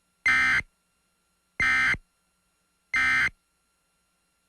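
Emergency Alert System end-of-message signal: three short bursts of SAME digital data tones, each a fraction of a second long and evenly spaced with silence between them, marking the end of the alert.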